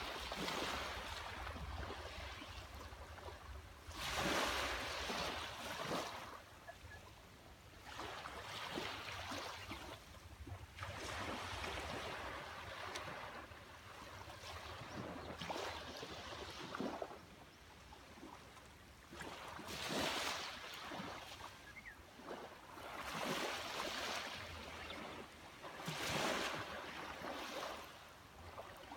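Small sea waves washing up on a beach, each one a swell of hiss that rises and fades every few seconds, over a steady low rumble of surf.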